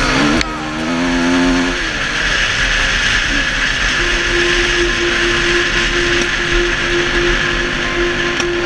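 Dirt bike engine running under way, heard from a helmet camera with wind rush over it.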